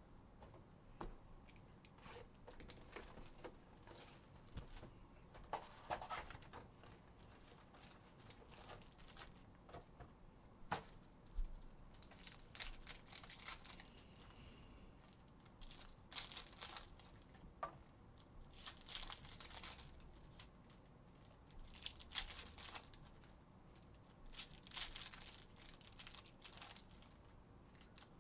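Foil wrappers of 2021 Panini Phoenix football card packs being torn open and crinkled by hand. The sound is faint and comes in repeated short bursts of tearing and rustling, with a few sharp ticks.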